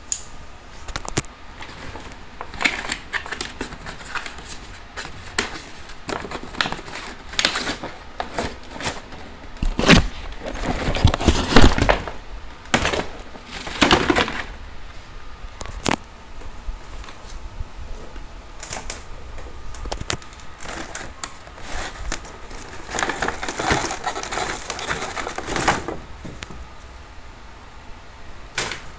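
Cardboard box and clear plastic clamshell packaging being opened and handled: irregular crinkles, scrapes and knocks, with louder bursts of crackling in the middle and again later on.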